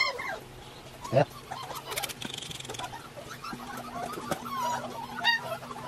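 European Doberman puppies whining and yelping in many short, high squeaks, with a loud knock about a second in and a cluster of sharp clicks about two seconds in.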